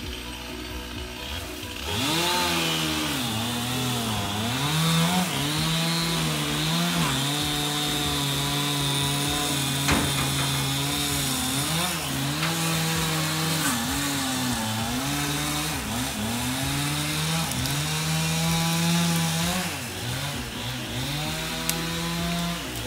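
Two-stroke chainsaw running at high revs from about two seconds in, its pitch holding steady for stretches and repeatedly dropping and climbing back.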